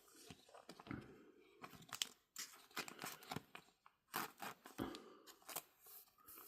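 Crinkling and tearing of a foil trading-card pack wrapper with cards being handled: an irregular run of sharp crackles and snaps.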